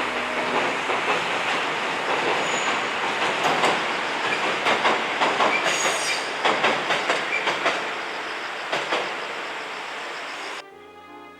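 Train running along the track: a steady rolling noise, with the wheels clicking over rail joints in a quick run through the middle. It cuts off abruptly near the end.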